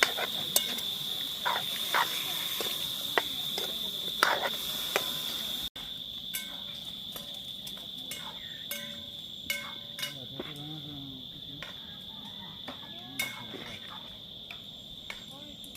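Steady high-pitched cricket chorus, with scattered short clicks and knocks. The sound drops out for an instant and comes back a little quieter about six seconds in.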